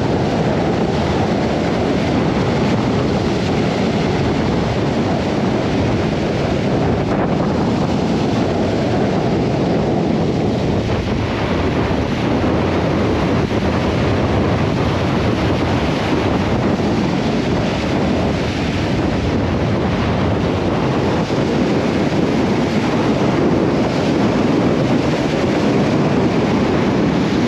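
Force 4 to 5 wind buffeting the microphone in a steady low rumble, with surf breaking on the beach under it.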